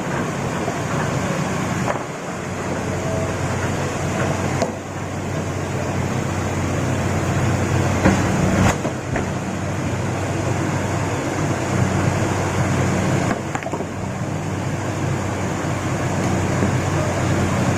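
Heavy diesel engine of an excavator running steadily, with a few sharp knocks.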